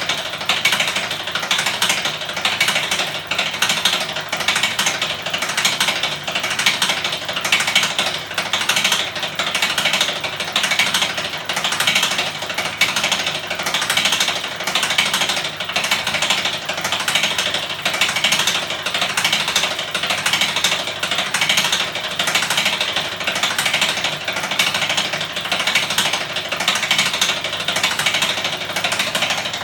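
A homemade spinning magnet-engine rig, turned through a bicycle ratchet, running at a steady speed with a fast, continuous mechanical clatter of rapid clicks and rattling.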